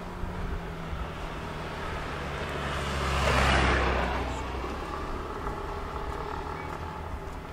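A road vehicle passing by: its engine and tyre noise grow louder to a peak about three and a half seconds in, then fade away.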